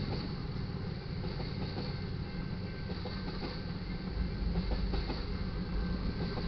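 Railroad tank cars of a freight train rolling past close by: a steady rumble and clatter of steel wheels on the rails.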